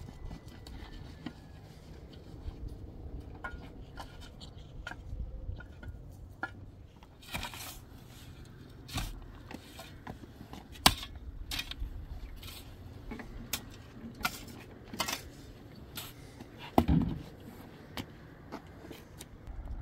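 Irregular knocks and clinks, a dozen or so spread unevenly through, the sharpest about eleven seconds in and a duller thump about seventeen seconds in.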